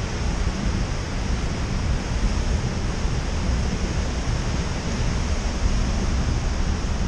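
Wind rushing over the microphone of a camera on a bicycle descending a wet road, a steady noise heavy in the low end, mixed with tyre hiss on wet tarmac.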